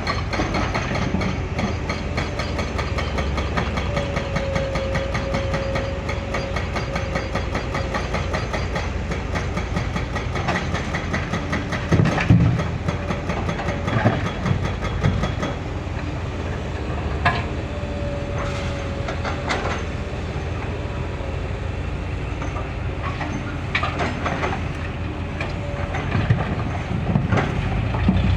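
Excavator running, with a fast, even metallic clatter, a wavering whine and several louder clanks.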